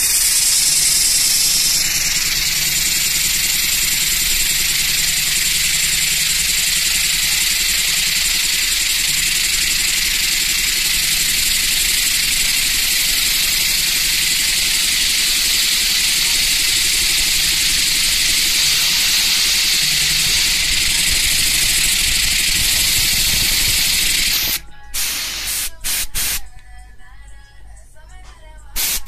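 Compressed air hissing from a blow gun held to the steam inlet of a Stuart S50 model mill engine, driving the engine on air. The hiss is loud and steady, cuts off about three-quarters of the way through, comes back in a few short blasts, then starts again near the end.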